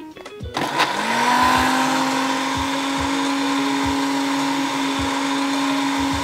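Electric blender switched on about half a second in: the motor spins up in pitch, then runs steadily. It is grinding chunks of young jackfruit with onion, green chilli and garlic into a dry paste, with no water added.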